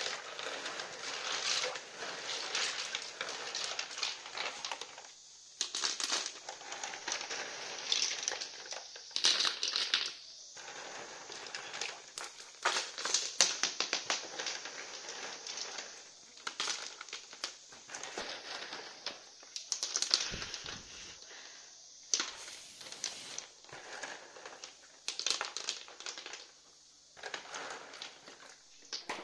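Pebbles being washed by hand in a plastic basin of muddy water: water sloshing and splashing, with stones clacking against each other in quick irregular clicks.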